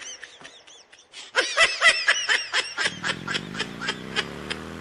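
Rapid bursts of machine-gun fire, about nine or ten shots a second, played by a motorbike horn modified to sound like an AK-47, with a short break about a second in. The bursts fade out a little before a low, steady hum that rises slowly in pitch takes over near the end.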